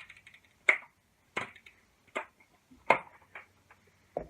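A run of sharp plastic clicks at a fairly even pace, a little over one a second, from handling a Spomb bait rocket and its new spring.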